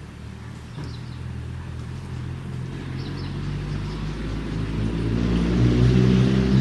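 A motor vehicle's engine approaching, its low hum growing steadily louder, with a few faint bird chirps.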